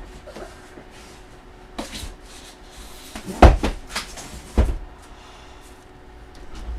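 Handling noise from heavy boxed photos being moved and set down: scattered knocks and clicks, with two loud thumps about three and a half and four and a half seconds in.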